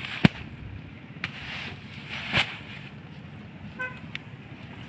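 Sacks of unhusked rice being handled at a platform scale: a sharp knock just after the start, another click about a second later and a louder rustling burst midway, over a low steady rumble. A short pitched toot sounds near the end.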